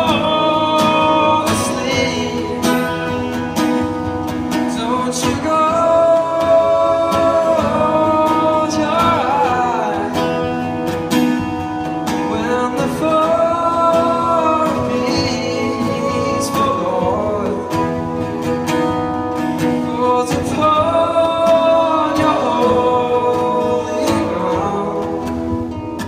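Live looped music: guitar layered on a Boss RC-30 loop station, with wordless sung vocal lines over it.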